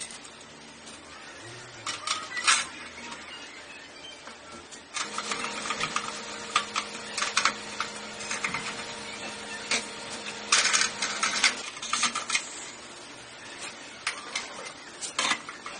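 Small brass burner caps and a stainless steel cover plate clicking and clinking as they are fitted onto a nine-jet gas burner head. The taps come a few at a time at first, then in a busy run over a faint steady hum in the middle, with a few more near the end.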